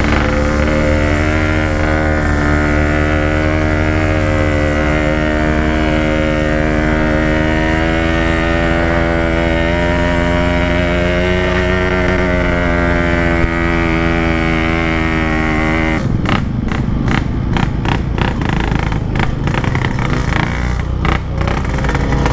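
Two-stroke motorcycle engine with an aftermarket exhaust running at a steady cruising pace, its note drifting slightly up and down. About 16 seconds in the steady note breaks up into a rough, uneven, choppy sound.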